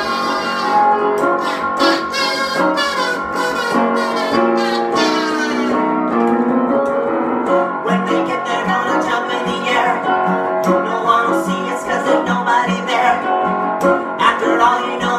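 A kazoo buzzing out the melody over strummed acoustic guitar for the first several seconds, then a woman and a man singing together over the guitar.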